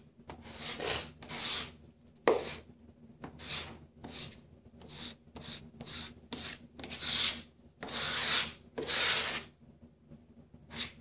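Irregular scraping and rubbing strokes as wood glue is worked into the kerf cuts of a birch port panel, with one sharp knock on the wood about two seconds in.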